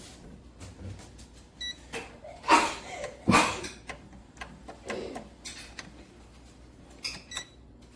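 Two short electronic beeps, about five and a half seconds apart, fitting the digital control panel of an air fryer toaster oven. Two loud knocks come a little under a second apart between them.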